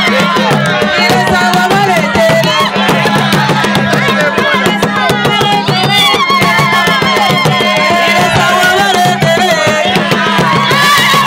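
Traditional Zambian hand drums playing a steady beat, with voices singing over them.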